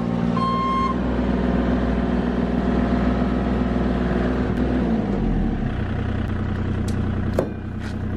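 Bobcat E35 mini excavator's diesel engine running steadily, with one beep of its reversing alarm at the start. About five seconds in, the engine note drops and settles lower, and a sharp click comes near the end.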